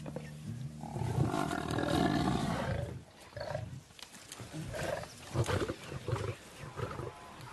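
African buffalo cow bellowing in distress while lions hold her down by the throat. One long, loud bellow lasts about two seconds, then shorter calls follow.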